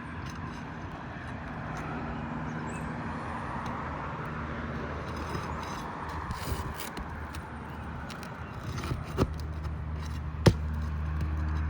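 Tools working asphalt roof shingles loose, with scattered taps, scrapes and clicks and one sharp knock near the end, over a steady low hum that grows louder in the last couple of seconds.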